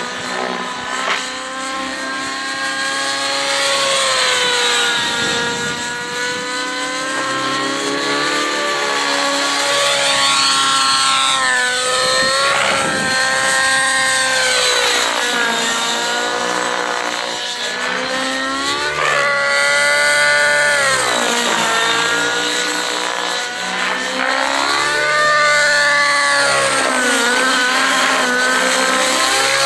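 Nitro glow engine of a Rave ENV 90 radio-controlled helicopter running hard in aerobatic flight. Its pitch keeps rising and falling, with a few sharp swoops.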